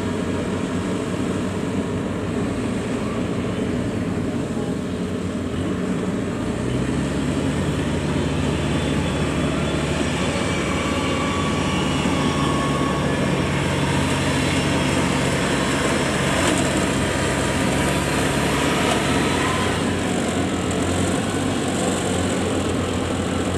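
Diesel engines of Kubota rice combine harvesters running steadily while cutting rice. A deeper engine hum joins about seven seconds in and fades again near the end.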